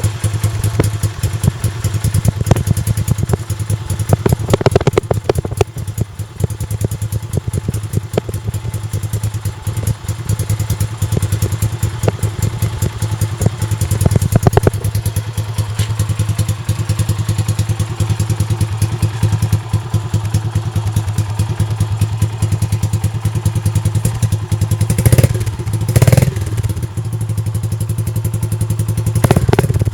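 Yamaha SRX400's air-cooled single-cylinder four-stroke engine running through a Yoshimura exhaust, idling with a steady, even beat. There are short rises in engine speed about five seconds in, around the middle, and twice near the end.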